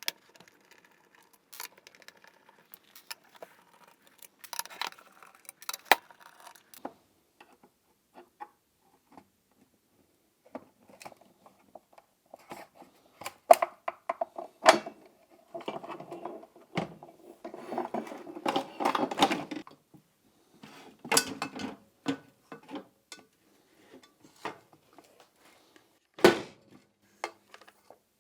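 Hand screwdriver work on a washing machine's plastic door: irregular clicks, scrapes and knocks as Phillips screws are undone around the inner door and the inner and outer door halves are prised apart, with small metal screws clinking.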